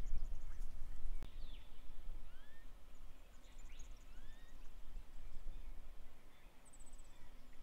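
Small birds calling over a low, fluctuating rumble of wind on the microphone: several short rising chirps and high twittering notes, a single sharp click about a second in, and a brief high buzzy trill near the end.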